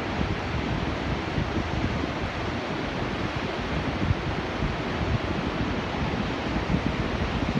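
Pacific Ocean surf washing steadily on the shore, with wind buffeting the microphone in irregular gusts.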